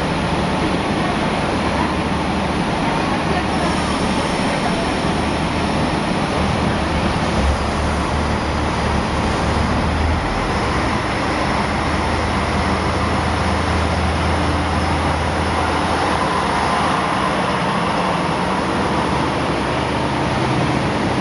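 Diesel engines of the Yufuin no Mori diesel multiple unit running steadily at the platform, then the train pulling away with its cars rolling past.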